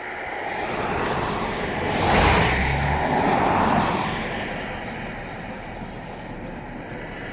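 Cars passing on a road: traffic noise swells and fades as vehicles go by, loudest about two to four seconds in.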